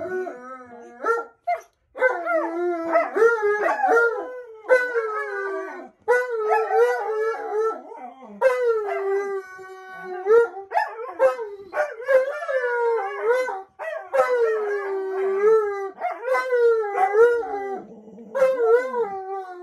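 A Siberian husky and an Alaskan malamute howling together. They give long, wavering howls, the two voices often overlapping, with brief breaks for breath every few seconds.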